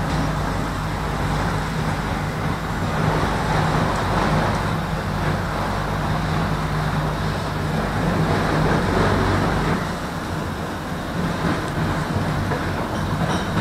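Tram running along its track, heard from on board: a steady low electric hum under a continuous rumble of wheels on rail.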